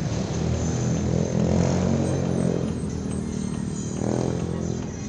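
An engine running steadily, swelling louder about a second in and again near the end.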